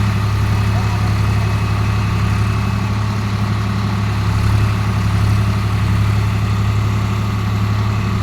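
Swaraj tractor's diesel engine running steadily with an even low drone, no revving or load changes.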